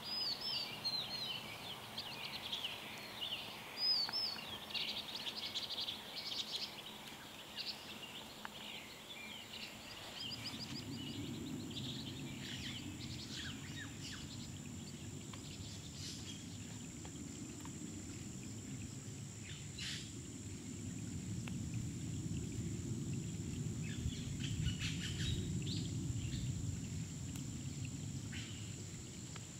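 Small birds chirping and twittering during the first several seconds, with scattered light clicks and taps as starch-coated fish are handled in a metal mess-kit pan. From about ten seconds in, a steady low rumble sets in underneath.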